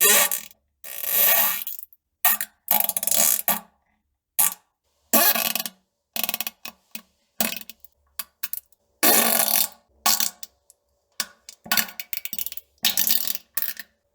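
A series of fart sounds, about a dozen, separated by short silences. Some are single blasts lasting up to a second; others are quick runs of short, rattling pops.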